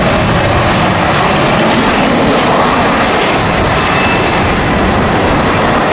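Jet airliner engines running loud and steady, with a high turbofan whine held on one note.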